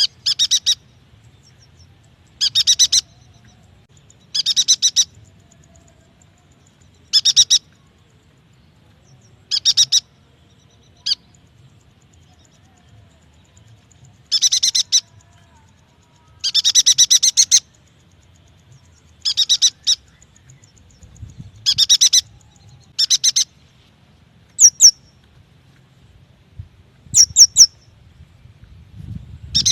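Yuhina calling: short bursts of rapid chattering twitter, one every two to three seconds, with a few sharp single slurred notes near the end.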